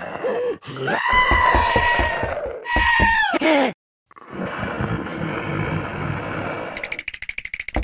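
Cartoon character voice effects: two held, whining calls that fall in pitch at their ends over a low rapid pulsing. After a short pause comes a stretch of hiss, then a rapid run of clicks near the end.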